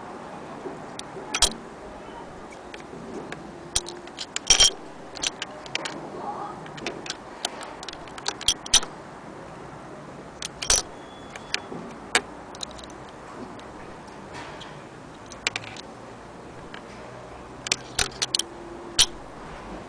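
Irregular metallic clicks and clacks of a 1902 Singer 48K sewing machine's long steel slide plate being slid open and shut by hand, with fingers handling the parts in the shuttle area beneath it.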